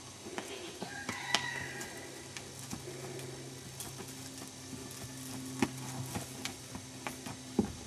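Footfalls of a walking horse and its handler on dry dirt: irregular soft knocks and clicks over a steady low hum, with a short ringing clink about a second and a half in.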